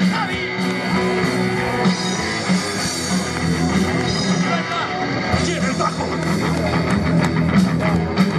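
Live rock band playing, with electric guitars, bass and drum kit going together in a steady, loud riff.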